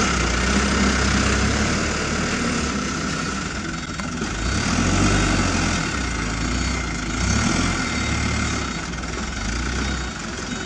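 Diesel engine of a loaded Hino 300 dump truck running as the truck pulls slowly across soft dirt, its engine note rising and falling several times.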